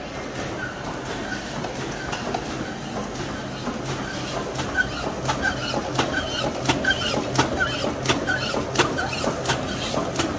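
Shiki 30 MDFU flatbed label printing and foil-stamping machine running, a steady mechanical clatter with a sharp clack about three times a second as the press cycles. The clacks grow louder from about halfway in.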